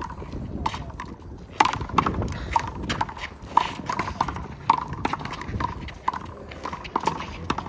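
Rubber handball being slapped by hand and smacking off the wall and the court surface in a quick, irregular series of sharp pops, each with a short hollow ring.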